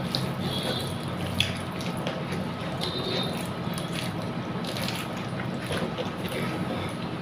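Wet eating sounds: rice and mung dal being mixed by hand and chewed, with scattered small clicks over a steady low hum. A few brief high chirps come through, one about three seconds in.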